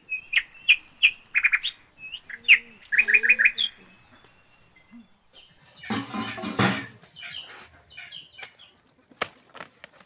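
Birds chirping in quick runs of short, repeated notes, followed about six seconds in by a louder, harsh, noisy burst and then a few sharp clicks near the end.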